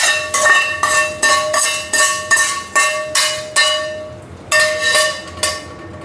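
A metal spoon striking and clinking against a ringing steel pan, roughly three strokes a second with a short break about four seconds in, as the tempering is mixed into the mashed spinach.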